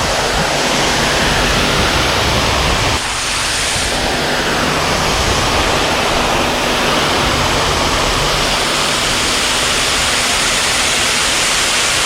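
Small creek waterfall rushing: a steady, loud wash of falling water.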